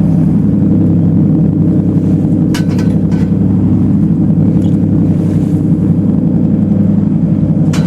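Boat engine running at a steady pitch, with a few sharp clicks about two and a half to three seconds in and again near the end.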